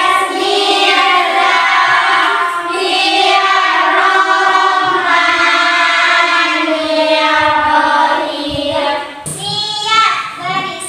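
A class of schoolchildren singing a song together in unison, with a woman's voice among them, on long held notes; a phrase ends about nine seconds in and the singing starts again.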